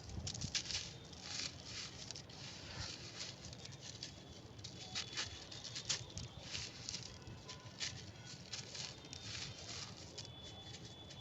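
Crunchy, brittle material being crumbled and crushed for ASMR: a dense, irregular run of crisp crackles and crunches with no steady rhythm.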